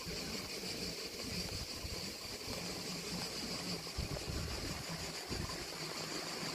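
Quiet outdoor ambience: an uneven low rumble of wind on the microphone over a faint, steady high-pitched hiss.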